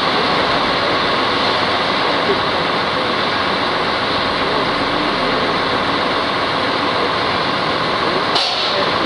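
Two coupled X 73500 (A TER) diesel railcars pulling away, their engines giving a steady running drone. A sudden short hiss comes in near the end.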